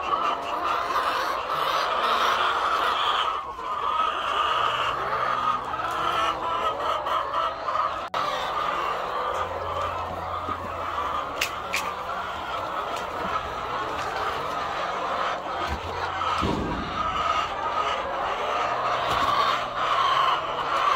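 A large flock of white laying hens clucking continuously, many birds at once, with a few sharp clicks near the middle.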